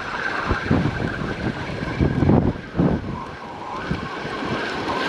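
Wind buffeting the microphone in uneven gusts, loudest about two to three seconds in, over a steady wash of ocean surf.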